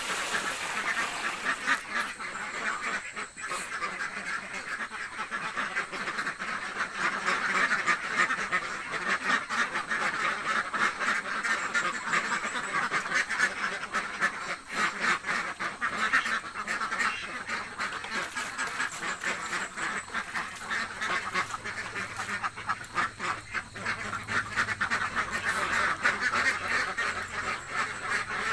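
A flock of domestic ducks quacking continuously, many calls overlapping into a steady clamour. The ducks are hungry and calling for food.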